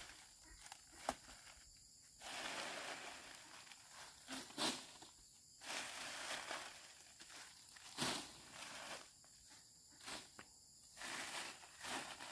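Faint footsteps and rustling, with a few sharp clicks or knocks.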